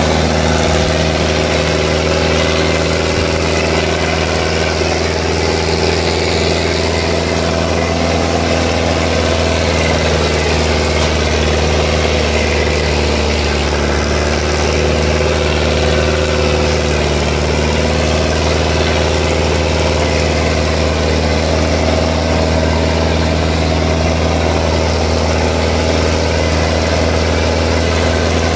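Sonalika DI 750 III tractor's diesel engine running steadily under heavy load, dragging a disc harrow through ploughed soil. The engine note dips slightly near the middle.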